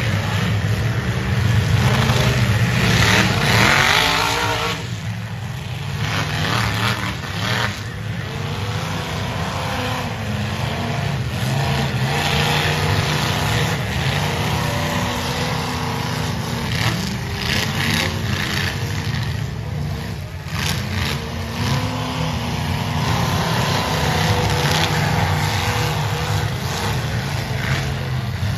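Demolition derby cars' engines running and revving, their pitch rising and falling again and again.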